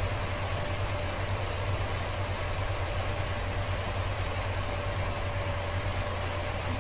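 Steady low mechanical hum with an even hiss and a faint constant whine, unchanging throughout.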